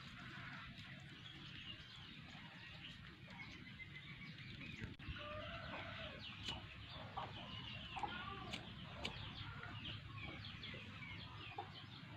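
Chickens clucking faintly, more often in the second half, with a few sharp clicks among the calls.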